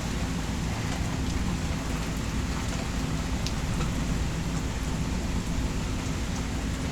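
Steady rain falling in a thunderstorm, with a constant low rumble underneath.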